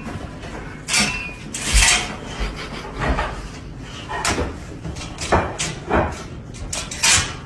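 Metal wire dog crate door rattling and clanking as a dog paws at its slide-bolt latch, in irregular sharp knocks about once a second.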